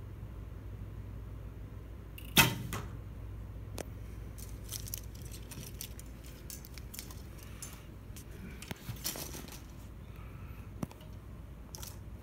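Olympic recurve bow shot: the string snaps forward with one sharp crack about two seconds in, followed by a short ringing. Scattered fainter clicks and light rattles follow.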